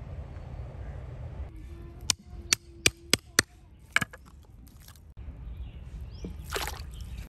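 A large knife chopping through rohu fish steaks on a chopping block: five sharp chops in under a second and a half, then one more about half a second later. Water splashing in the fish-washing basin follows near the end.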